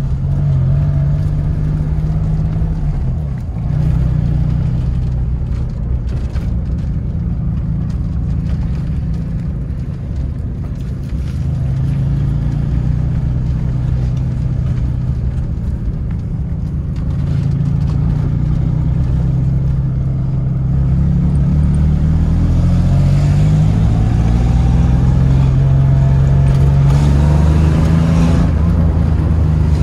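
Engine of a freshly revived barn-find Suzuki Swift running under way, heard from inside the cabin with road noise. Its note dips about a second in, holds fairly steady, then rises through the last several seconds as the car gathers speed.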